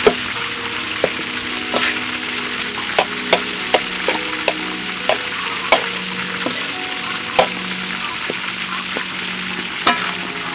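Fried rice sizzling in a metal wok while a metal spatula scrapes and knocks against the pan, giving irregular sharp clicks over a steady hiss.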